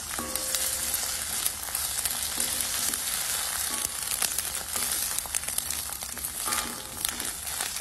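Sliced onions and ginger-garlic paste sizzling in oil in a steel kadai, stirred with a wooden spatula that scrapes and clicks against the pan now and then. They are frying until the raw smell of the paste is gone.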